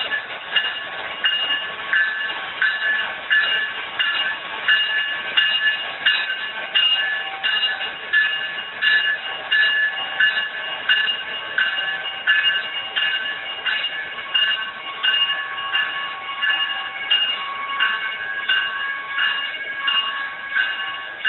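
Intermodal freight train of trailers on flatcars rolling steadily through a grade crossing, while the crossing's two electronic bells ring in a steady repeating pattern over the rumble of the cars.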